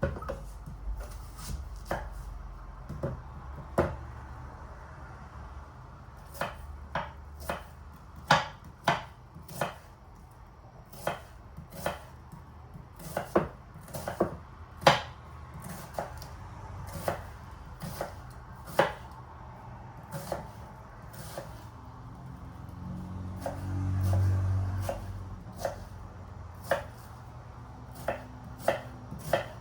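Kitchen knife chopping on a cutting board in irregular single strokes, sometimes in quick runs of two or three. A brief low rumble swells and fades about two-thirds of the way through.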